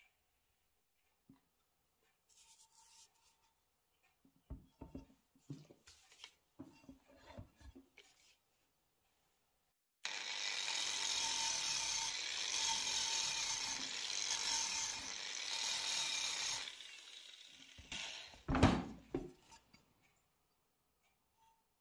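Angle grinder with a brass wire wheel brush running against an aluminium scooter crankcase, a steady scrubbing noise for about seven seconds that then winds down. Before it come a few light knocks as parts are handled, and near the end a single loud thump.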